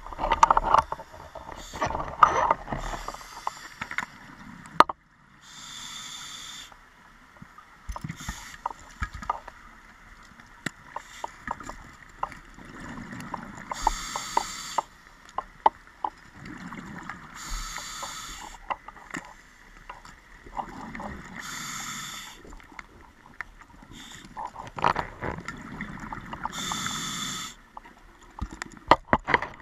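Scuba diver breathing through a regulator underwater: slow breath cycles every three to four seconds, each a hissing draw followed by a gurgling rush of exhaled bubbles, with scattered small clicks and knocks. The clatter is denser in the first five seconds.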